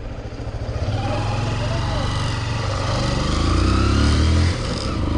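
Hero Impulse's single-cylinder motorcycle engine running under way and gathering speed, its pitch climbing and then dropping sharply about four and a half seconds in. The owner says the clutch plate is worn out and the bike barely pulls.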